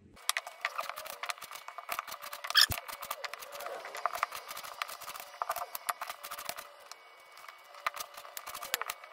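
Kitchen knife cutting peeled raw potatoes into chunks on a bamboo chopping board: a run of irregular taps and knocks of the blade through the potato onto the wood, with one sharper knock a little over two and a half seconds in.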